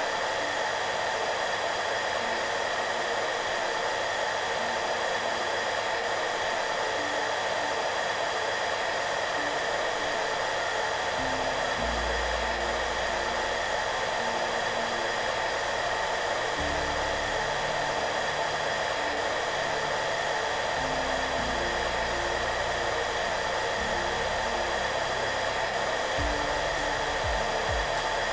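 Hair dryer running steadily: an even airy hiss with a faint steady whine in it. Soft background music plays low beneath it, slow low notes changing every second or so.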